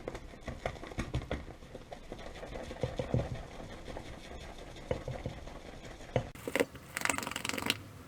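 Shaving brush whipping soap lather in a ceramic shaving scuttle: soft irregular swishing and tapping of bristles against the bowl, with a louder, scratchier stretch of brisk swirling about six seconds in.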